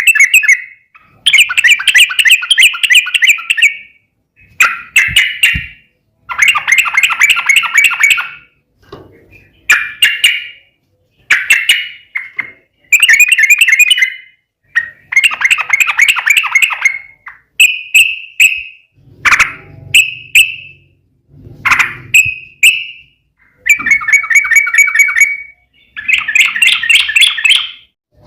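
Yellow-vented bulbul (trucukan) singing its rapid, rolling "ropel" song: a string of short, bubbly chattering phrases of one to two seconds each, separated by brief pauses.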